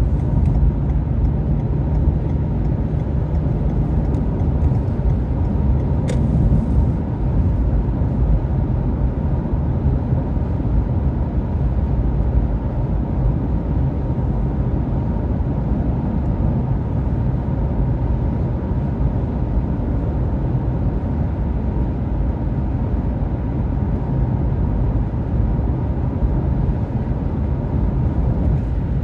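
Car driving on a highway, heard from inside the cabin: a steady low rumble of tyres and engine that does not change throughout.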